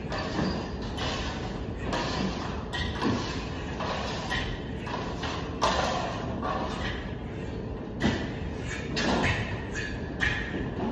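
Plastering trowels scraping in irregular strokes over a plaster ceiling, with a couple of sharp knocks.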